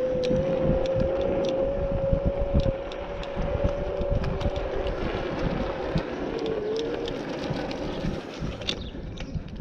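A 500 W electric scooter's motor whining at a steady pitch while riding, over wind rumble on the microphone and scattered rattling clicks. The whine fades about halfway through, then returns lower and wavering as the scooter slows.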